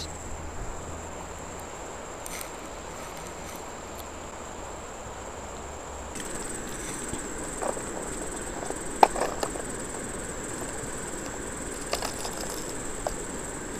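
Steady high-pitched chirring of insects over the even rush of a river, with a few light clicks and rustles in the second half as fishing tackle is handled on the stones.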